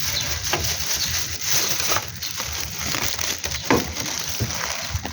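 Rustling and crinkling of a shopping bag with several sharp crackles scattered through it, as a cat noses into the shopping.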